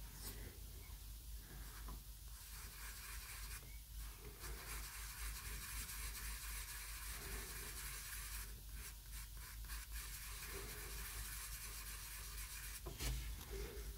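Soft pastel being worked across paper: a quiet, dry scratching and rubbing of colouring strokes, with a light tap near the end.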